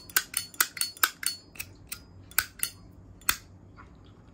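Brushed-chrome 1998 Zippo lighter being worked by hand: a quick, uneven run of about ten sharp metallic clicks with a bright ping, from the lid snapping and the flint wheel. The clicks stop a little over three seconds in.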